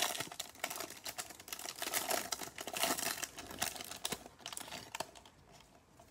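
Clear plastic wrapper of a trading-card pack crinkling and crackling as gloved hands peel it open and slide the stack of cards out. The crackling thins to a few light ticks after about four seconds.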